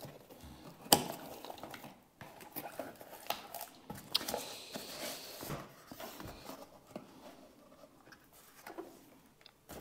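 Cardboard shipping box being opened by hand, its flaps and packing handled: irregular rustling and scraping, with a sharp tap about a second in.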